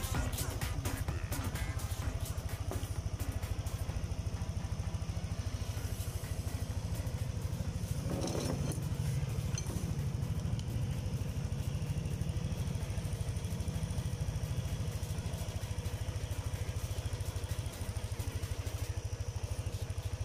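Yamaha NMAX 155's single-cylinder four-stroke engine idling steadily with an even, fast pulse, running on its freshly cleaned fuel injector.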